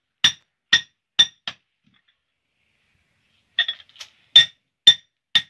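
A hand hammer strikes a red-hot steel hammer head being forged from a truck axle shaft, in the final shaping. The sharp, ringing metal-on-metal blows come about twice a second: four blows, a pause of about two seconds, then several more.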